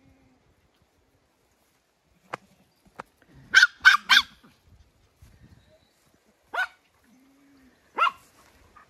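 Small dogs barking in short, sharp yaps: three quick barks about three and a half seconds in, then a single bark near the middle and another near the end.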